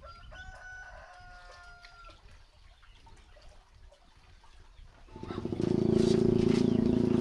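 A rooster crows once in a long held call near the start. From about five seconds in, a much louder steady droning sound with a low hum comes up and keeps going.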